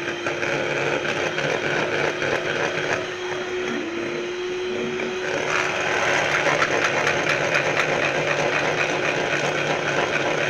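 Electric hand mixer running steadily, its metal beaters whisking softened butter in a plastic bowl with a rapid rattle against the sides. The motor's pitch dips briefly about four seconds in, then recovers.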